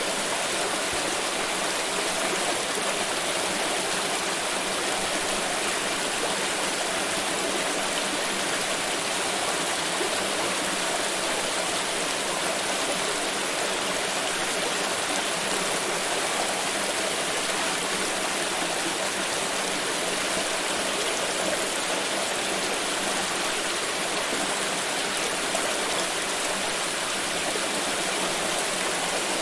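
Water pouring and splashing in a steady, unbroken rush, like a stream or small waterfall.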